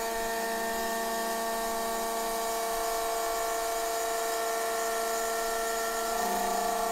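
A small electric toy motor running steadily with a high whine; its tone shifts slightly about six seconds in.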